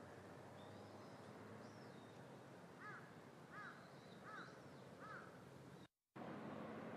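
A crow cawing four times, about one caw every three-quarters of a second, over a faint steady outdoor hiss, with thin higher chirps of small birds. The sound cuts out completely for a split second near the end.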